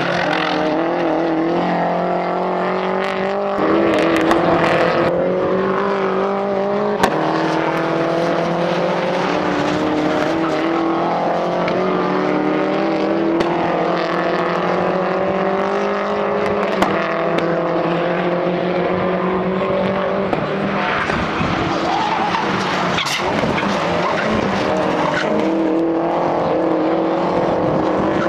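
Touring and GT race cars' engines running hard as cars pass one after another, the engine notes climbing slowly and breaking off several times at gear changes.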